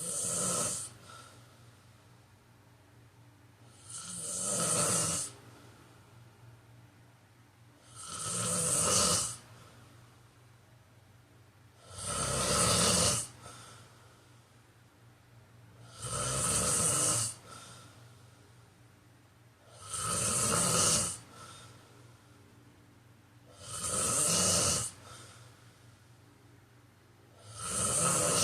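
A man snoring in a steady rhythm, one snore about every four seconds. Each snore lasts about a second, grows louder and then stops sharply.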